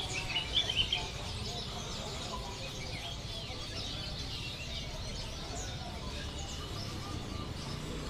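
Many small caged songbirds chirping and twittering together, a dense chorus of high chirps, loudest in the first second, over a low steady rumble.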